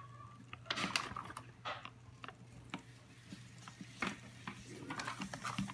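Zuru Robo Alive robotic angelfish toy swimming in a plastic tub of water: faint splashing and irregular light ticks as its tail flaps, over a low steady hum.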